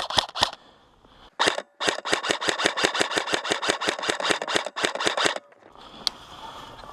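Airsoft rifle firing: a few quick shots, a short burst about a second and a half in, then a long full-auto burst of about nine shots a second lasting roughly three and a half seconds before it stops.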